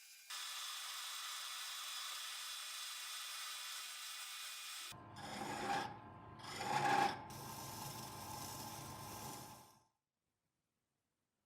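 Abrasive rubbing on a surface, with two louder strokes about five and seven seconds in over a steady hiss, cutting off suddenly near the end.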